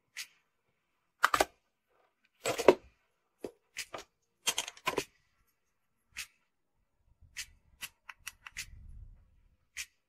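Plastic art markers being handled: about a dozen irregular sharp clicks and knocks as markers are drawn from a packed case, knock against one another and have their caps pulled off and pushed back on. The two loudest knocks come a little over a second in and again about a second later.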